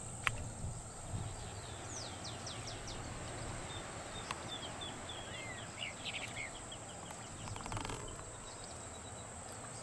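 A small bird singing a run of quick chirping notes, mostly falling in pitch, over a steady high-pitched whine and a low hiss of outdoor ambience. A single sharp click comes just after the start.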